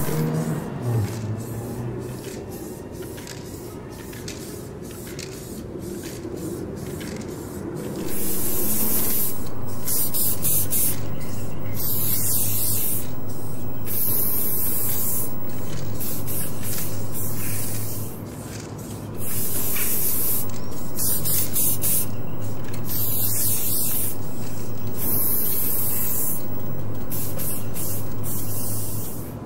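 Aerosol spray-paint cans hissing in a run of short and longer sprays, loud from about a quarter of the way in, with a low hum underneath and a break of about a second near the middle. At the start a passing vehicle fades out, leaving quieter street noise.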